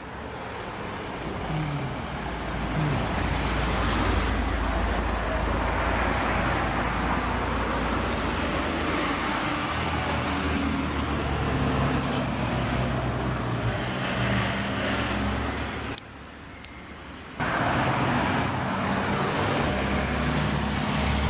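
Classic sports cars, an MGB among them, driving past one after another, engines running and rising in pitch as they accelerate. About sixteen seconds in the sound drops away briefly before another car's engine comes in.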